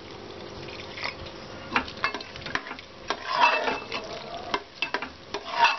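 Steel ladle stirring wet khichdi in a metal pressure cooker, with scattered clinks and scrapes of the ladle against the pot and a louder stretch of stirring about three seconds in. Lukewarm water is poured into the rice at the start to thin it.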